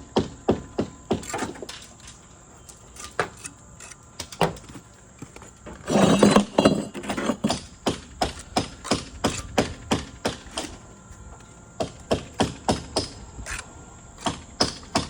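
Repeated hammer blows on masonry, about three to four strikes a second, with a pause of about two seconds. About six seconds in there is a loud, rough rush of noise lasting about a second and a half before the steady strikes resume.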